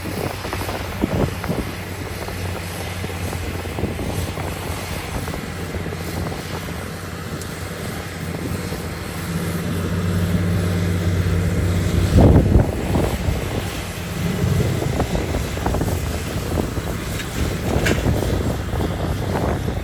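Heavy diesel earthmoving machine's engine running steadily, pulling harder for a few seconds around the middle. A loud rough clattering rumble follows.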